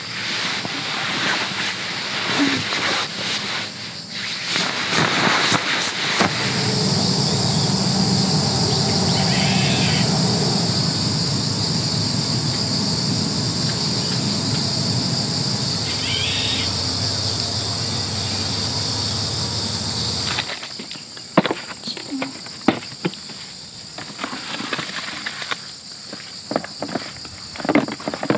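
Insects droning steadily in a high pitch, with rustling of bedding at the start and crinkling, clicking handling sounds near the end. A loud low steady rumble fills the middle stretch and cuts off suddenly about twenty seconds in.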